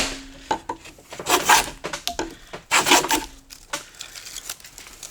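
Low-angle block plane with a freshly sharpened blade being pushed along a board, taking heavy shavings: three scraping strokes about a second and a half apart, followed by a few light clicks and knocks.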